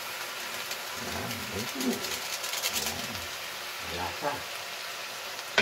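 Bok choy, garlic and ginger frying in oil in a stainless-steel pot, a steady sizzling hiss. A few soft low hums come and go over it.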